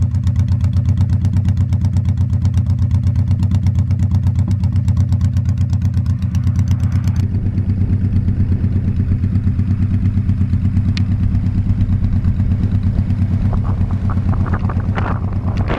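Honda Shadow Spirit 1100's V-twin engine running with a steady, pulsing low throb. Wind noise on the microphone builds near the end as the bike rides on.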